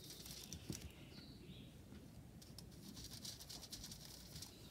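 Faint scratching and light ticking of a drawing tool working soap onto an aluminium-foil litho plate, in a quiet room.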